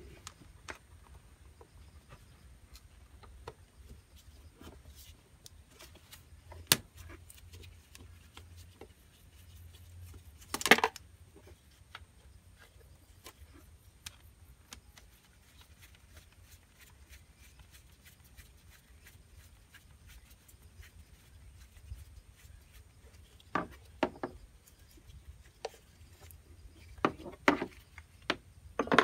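Scattered clicks and clinks of a screwdriver and metal parts being worked by gloved hands on a Honda Dio scooter's carburetor, with a louder clatter about ten seconds in and a few more knocks near the end.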